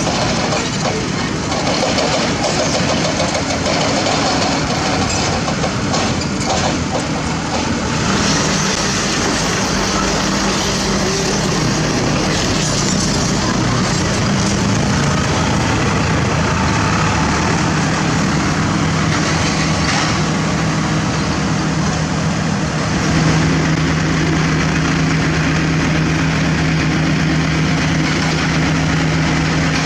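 Heavy diesel construction machinery running with a steady engine drone, with scattered knocks in the first several seconds. About three-quarters of the way through, the engine note rises and gets a little louder.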